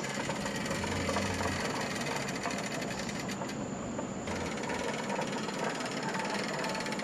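Many marbles and small stones rolling and clattering down a wooden HABA marble run slope: a dense, continuous rattle of small clicks.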